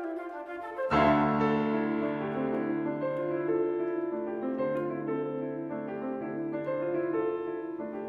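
Live flute and grand piano music: the flute line ends about a second in, where the piano comes in with a loud, deep chord and carries on alone with held bass notes and moving chords.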